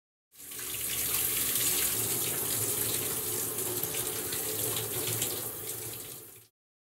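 Shower running, water spraying steadily as an even hiss; it comes in just after the start and stops abruptly about half a second before the end.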